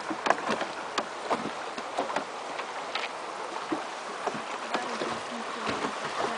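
River water lapping and splashing against the wooden hull of a traditional plank raft under way, a steady rush of flowing water broken by many irregular small slaps and knocks.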